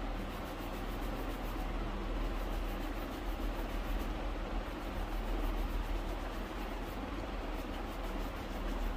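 A shoe being shined, heard as a steady rubbing hiss of fast, even strokes on leather.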